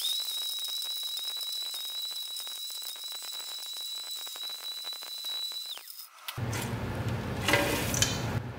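Bateerun tabletop blender running at speed on crushed laptop circuit boards: a steady high whine over a hiss, which drops in pitch and stops about six seconds in.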